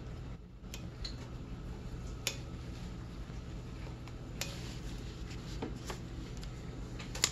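A low steady hum with a few faint, light clicks and taps from a hand handling the carburetor assembly and the camera.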